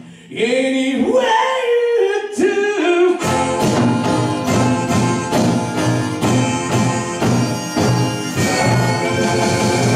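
A high solo voice singing with bending, ornamented notes, nearly alone, then about three seconds in taiko drums, a lap-played slide guitar and a shamisen come in together with steady drum beats.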